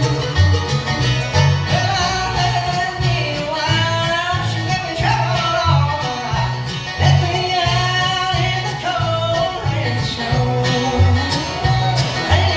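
Bluegrass band playing an instrumental passage, a gliding fiddle melody over banjo and guitar with a steady bass beat.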